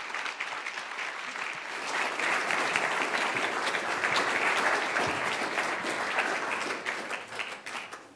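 Audience applauding, the clapping swelling about two seconds in and dying away near the end.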